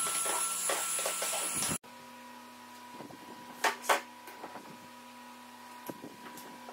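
Bosch wet/dry shop vacuum running steadily with a thin high whine as the floor is vacuumed, cutting off abruptly a little under two seconds in. A much quieter stretch follows with a few sharp clicks and knocks, two close together about halfway through, as planks are measured and laid.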